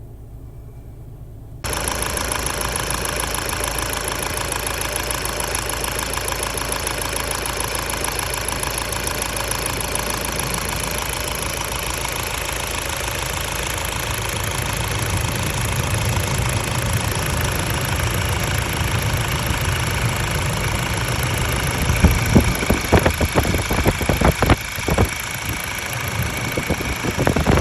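Ford Ranger engine running at a steady idle, starting suddenly a couple of seconds in, with a series of irregular knocks and surges near the end.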